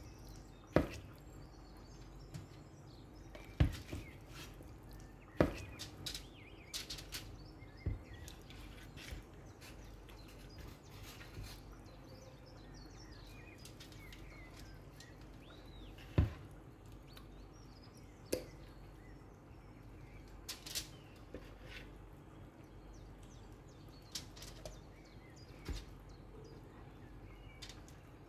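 Pieces of marinated chicken being laid on a foil-lined baking tray: scattered soft slaps and aluminium-foil crinkles, about a dozen, over a faint steady hum.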